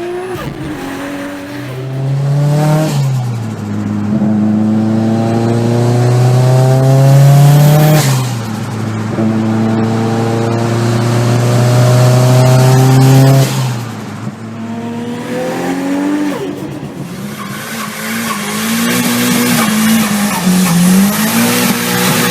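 Turbocharged car engine accelerating hard through the gears, its pitch climbing in three pulls, each cut off by a gear change. Near the end the revs rise and fall unevenly over a hiss of tyre squeal.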